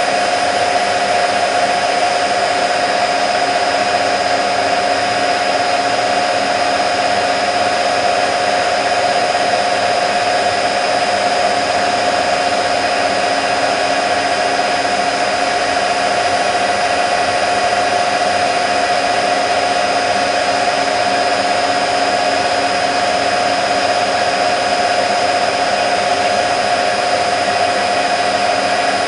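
Candy Nova CN146 washing machine in its fast final spin at 1400 rpm: a steady whine over an even rushing noise, holding at speed without change.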